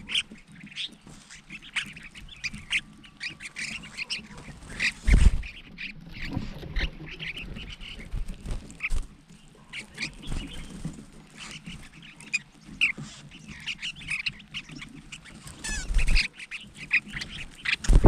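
A flock of crested finchbills calling with many short, harsh chirps and chatters, with a close low thump about five seconds in and another near the end.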